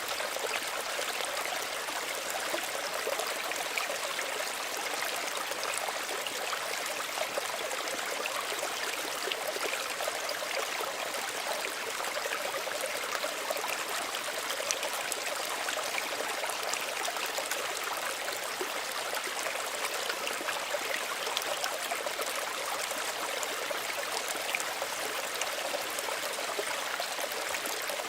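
Small stream running steadily over stones, a continuous bright babble and trickle of water.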